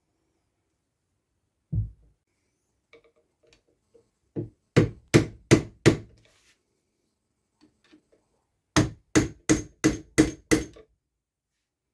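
Hammer strikes in a workshop: a single dull knock, then a quick run of about five sharp blows, and after a pause six more evenly spaced blows, about two or three a second.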